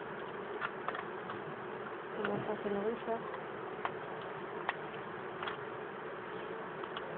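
Honeybees buzzing in a steady drone, with a few faint clicks in the middle.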